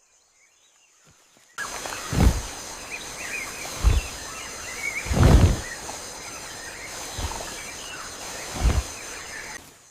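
Outdoor nature ambience with bird chirps and a faint high insect drone comes in about a second and a half in. Over it come five heavy, low footfall thuds, spaced roughly one and a half seconds apart: a large animal's footsteps sound effect, the elephant walking.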